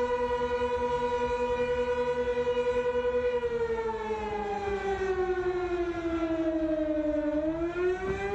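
Outdoor tornado warning siren sounding a warning. It holds a steady tone, slides down in pitch from about three seconds in, then starts rising again near the end.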